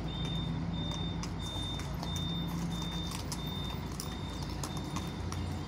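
Double-decker intercity coach's diesel engine running steadily as it pulls out and turns, with a high electronic warning beeper sounding about twice a second. A horse's hooves clop on the pavement close by.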